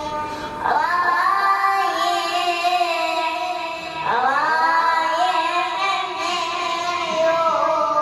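A young boy chanting an Arabic Shia elegy (latmiya), holding long, wavering melismatic notes; a new phrase slides in about half a second in and another about four seconds in.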